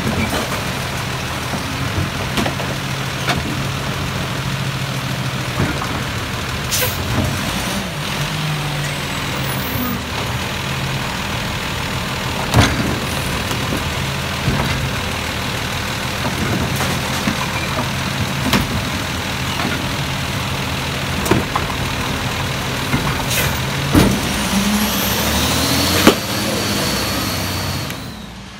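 Diesel garbage truck with a McNeilus side-loading automated arm running steadily while the arm's hydraulics lift and dump curbside carts. Sharp knocks come every few seconds as the carts bang against the arm and hopper, and the engine rises in pitch near the end.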